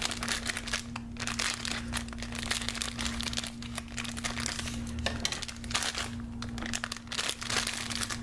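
Packaging crinkling and rustling in irregular bursts as a mystery keyring package is handled and opened by hand.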